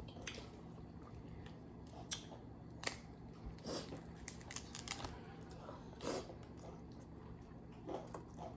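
Faint eating sounds at a seafood meal: chewing with scattered small clicks and crunches at irregular intervals.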